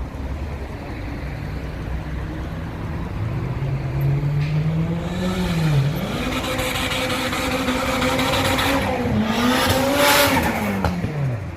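Turbocharged car engine accelerating hard: its pitch climbs, drops sharply about six seconds in at a gear change, climbs again, then falls away near the end as the throttle closes.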